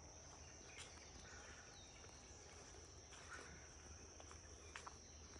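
Near silence: a faint, steady high-pitched hum with a few soft ticks scattered through it.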